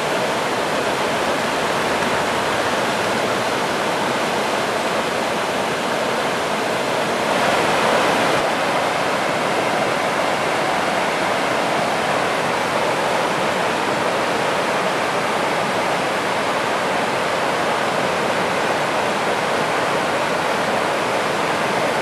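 Rain-swollen mountain river rushing down a rocky cascade: a loud, steady wash of white water, briefly a little louder about seven seconds in.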